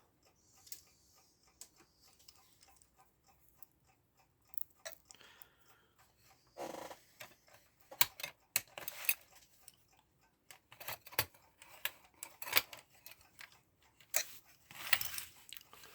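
Irregular small clicks and taps of metal clock parts being handled as an electric clock's movement is fitted into its case, sparse at first and busier from about six seconds in.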